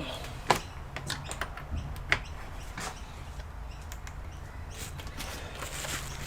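A few sharp clicks and taps from hands working on the opened computer, the loudest about half a second and two seconds in, over a steady low hum.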